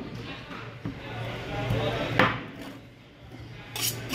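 A heavy knife chopping through fish on a wooden cutting board: one sharp chop about two seconds in and another near the end.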